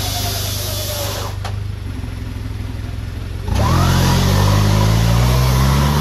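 Off-road 4x4 engine running steadily, then revving hard about three and a half seconds in, its pitch climbing as it speeds up.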